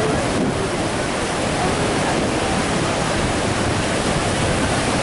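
Ocean surf breaking and washing into the shallows: a steady rush of waves.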